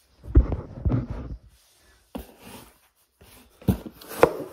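Handling noise from a cardboard shipping box being picked up and moved close to the phone: a handful of dull thumps and knocks with rustling between them.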